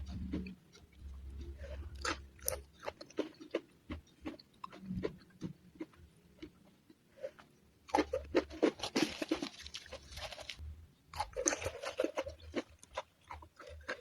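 A person chewing crunchy food close to the microphone, with wet clicks throughout and two dense runs of crunching, about eight and eleven seconds in.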